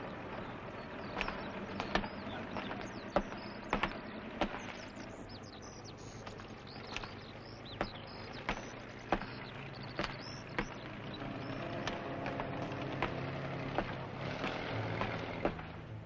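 Outdoor ambience: birds chirping and scattered sharp clicks, with a low vehicle engine hum that builds from about eleven seconds in.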